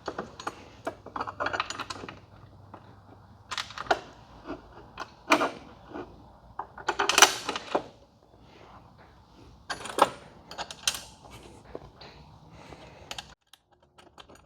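Small metal hardware clinking and scraping as a bolt, washers and lock nut are fitted through a steel luggage-rack bracket. The sound comes as scattered clicks, with a longer rattle about seven seconds in, and stops abruptly near the end.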